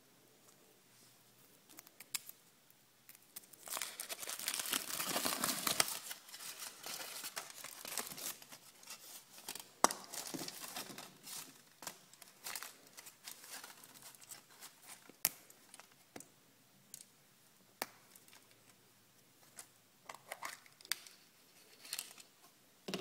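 The wrapper of a chocolate surprise egg being torn open and crinkled: a dense stretch of tearing and rustling about four to six seconds in, then scattered crinkles and sharp clicks.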